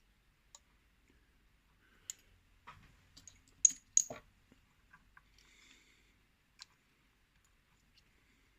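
Small sharp metallic clicks and light scrapes of a pin-tumbler lock being taken apart by hand, as a shim and plug follower are worked into the cylinder. Two loud clicks come close together a little under four seconds in.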